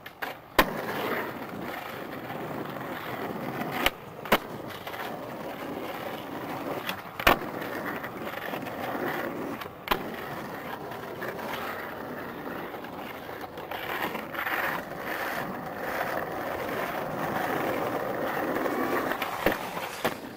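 Skateboard wheels rolling over concrete paving, broken by several sharp clacks of the board hitting the ground.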